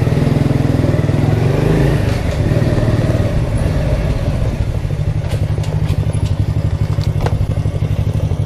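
Vehicle engine idling steadily close by, a low throbbing rumble.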